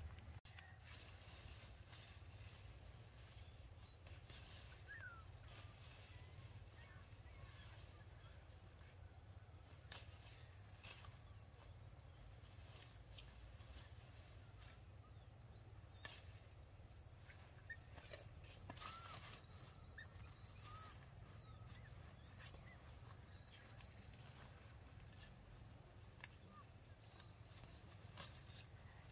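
Faint outdoor ambience of insects chirring in a steady, high-pitched drone, with a low background rumble and scattered faint clicks and brief chirps.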